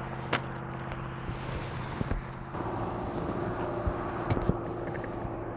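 Electric RC aerobatic plane striking the dry lakebed nose-first: one short impact thud about a third of a second in, over steady outdoor hum and wind. About halfway through, a steady motor drone of a second RC plane flying overhead joins, with a few light clicks.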